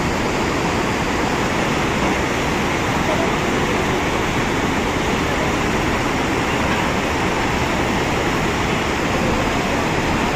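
Mountain river in flash flood after a cloudburst: a loud, steady rush of muddy floodwater.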